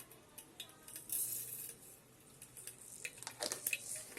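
Mustard seeds sizzling in hot oil inside an electric kettle: a faint high hiss, then scattered sharp pops and crackles near the end as the seeds begin to splutter.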